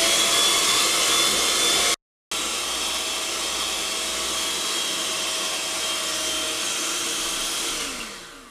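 Electric hand mixer running steadily with its beaters whipping thick zefir mixture into a dense white foam. A brief full dropout comes about two seconds in, and near the end the motor winds down with a falling pitch as it is switched off.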